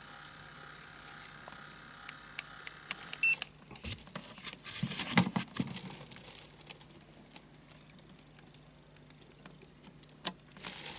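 Light clicks, taps and rustles of a model locomotive being handled by hand, over a faint steady hum.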